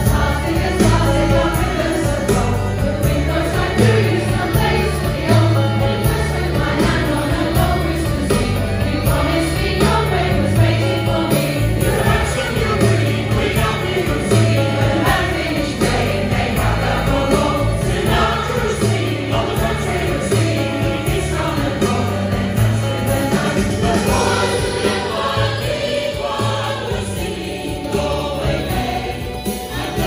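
Mixed choir of men and women singing together over backing music with a pulsing bass.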